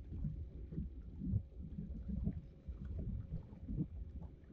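Water lapping and lightly splashing around a small boat, in many small irregular splashes over a steady low rumble.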